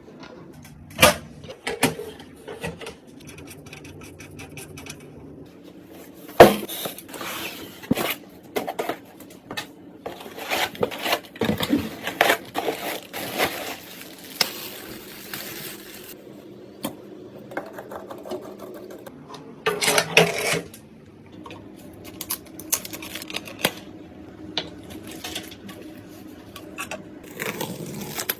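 Irregular clicks, knocks and scrapes of computer parts being handled and fitted together, with a sharp knock about six seconds in.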